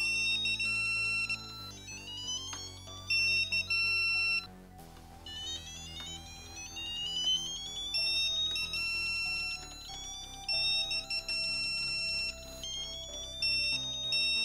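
Digital torque wrench's electronic alert during a torque audit: a tone rises in pitch as torque builds, then a loud steady beep holds at the set torque. This repeats several times.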